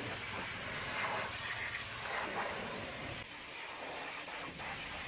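High-pressure washer jet spraying water against a truck's mudflap and wheel area: a steady hiss.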